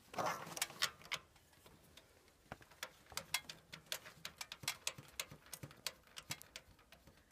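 Irregular small clicks and taps of a metal conduit fitting being worked into a heat pump's sheet-metal wiring box by hand, with handling rustle in the first second.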